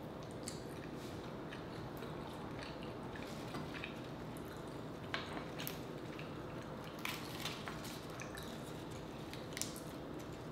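Close-miked eating sounds: chewing and wet mouth clicks, and fingers pulling apart rotisserie chicken meat, as scattered short sharp clicks over a steady faint hum.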